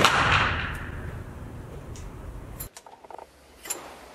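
The tail of a shot from a J. P. Sauer single-shot break-action rifle in 11 mm Mauser, dying away over about two and a half seconds: a fire-forming shot of .45-90 cases reformed to 11 mm Mauser. After a sudden drop come a few light metallic clicks as the break-action is opened.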